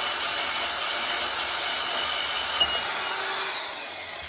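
Portable band saw running and cutting through square metal tubing with a steady grinding hiss. Near the end it drops in level as the blade finishes through the tube.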